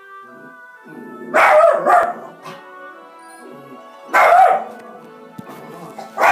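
Jack Russell terrier barking loudly: two barks in quick succession about a second in, then another about four seconds in. Soft piano music plays from a TV commercial underneath.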